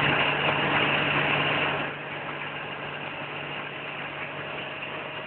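Piper PA-32's six-cylinder Lycoming piston engine running, heard inside the cabin as a steady low hum under a rushing noise. The overall noise drops noticeably about two seconds in.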